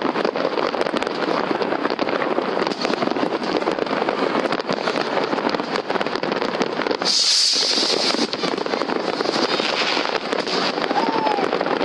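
Dense, continuous crackling and popping of many fireworks and firecrackers going off at once, with a brief hiss about seven seconds in.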